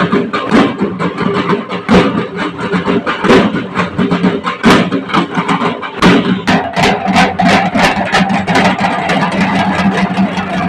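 A group of dhak drums, the large barrel drums of Bengal, beaten with sticks in a quick, driving rhythm of loud strokes that grows denser about six seconds in. A steady low hum runs underneath.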